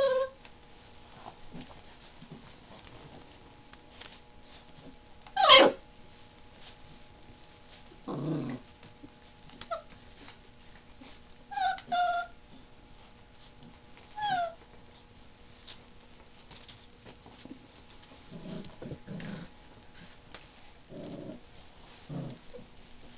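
Five-week-old puppies play-fighting: a few short, high yelps and yips, the loudest about five seconds in, with bouts of low growling around eight seconds and again near the end.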